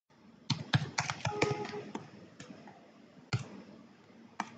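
Computer keyboard typing: a quick run of keystrokes in the first couple of seconds, then a few single key presses spaced apart.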